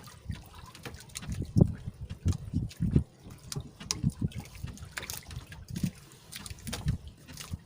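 Water sloshing and dripping in uneven splashes, with scattered small knocks.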